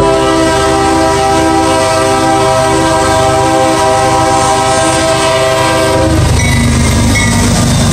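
CSX diesel freight locomotive's air horn blowing one long, steady multi-note blast for the grade crossing, cutting off about six seconds in. The locomotive's engine and wheels then rumble loudly as it passes close by.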